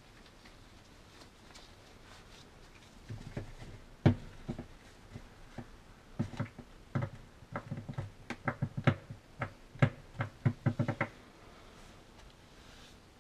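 Sharp knocks and clicks of gun parts being handled and set down on a work surface. There is a loud single knock about four seconds in, then a quick, irregular run of them from about six to eleven seconds.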